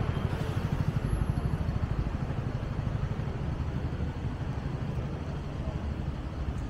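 Street traffic: cars driving past on a city street, a continuous low rumble.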